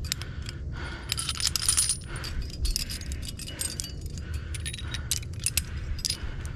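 Carabiners and cams on a trad climbing rack clinking and jangling against each other in many short, irregular metallic clinks as the climber moves and handles his gear.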